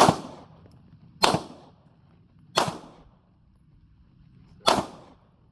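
Four handgun shots fired at an uneven pace, about one to two seconds apart, each with a short echoing tail.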